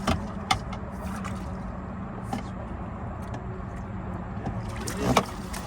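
Boat motor running steadily with a low hum, and a few sharp knocks on the boat, the loudest about five seconds in.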